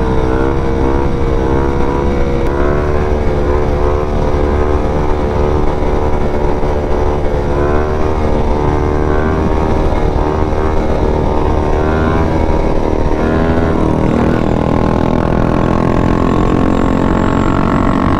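Motorcycle engine running under way, its pitch wavering with the throttle and climbing steadily in the last few seconds, over a steady low rumble.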